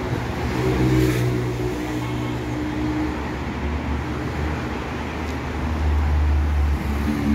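Street traffic: car engines running along a city boulevard, a low engine hum that grows louder near the end.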